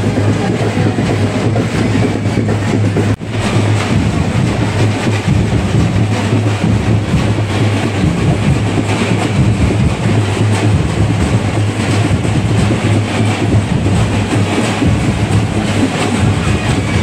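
Loud, dense festival drumming with crowd noise, a continuous rapid clatter of beats that drops out for an instant about three seconds in.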